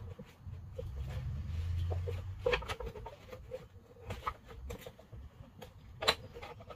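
Scattered clicks and light knocks from handling a nylon strap-style picture-framing clamp on a glue-up, with a low rumble for about a second and a half that ends in a sharp click; another sharp click comes about six seconds in.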